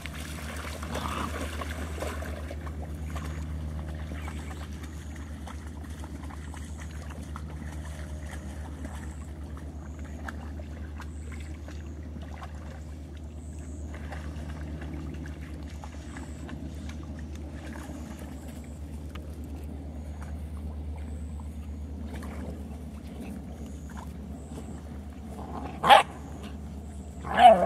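Labrador puppies playing, with two short, loud yelps near the end, the second falling in pitch. A steady low rumble runs underneath.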